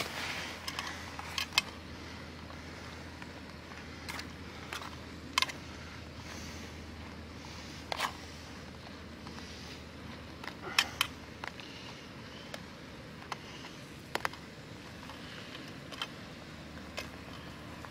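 Titanium spork stirring mushrooms in a metal camp frying pan: irregular sharp clicks and scrapes of metal on metal, the loudest about 5, 8 and 11 seconds in, over the steady low hiss of the gas canister stove.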